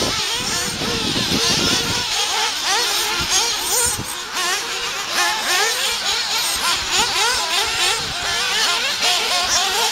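Several radio-controlled off-road buggies' small engines buzzing at high pitch, each rising and falling constantly as the cars accelerate and slow around the track.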